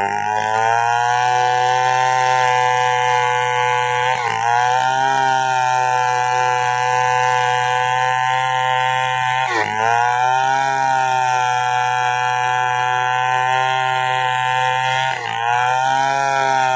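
Chainsaw engine running steadily at high speed, its pitch dipping briefly and recovering three times, about every five and a half seconds.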